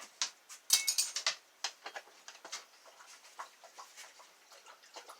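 Light metal clicks and clinks of lockpicking tension tools being fitted into the keyway of a Master Lock No. 576 padlock. There is a quick cluster of sharper clinks about a second in, then scattered soft ticks.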